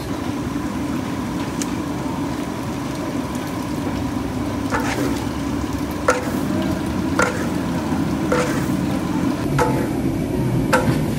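Curry spice powders and whole spices frying in hot oil in a large wok, sizzling steadily. A long metal ladle stirs them, scraping and knocking against the wok about once a second.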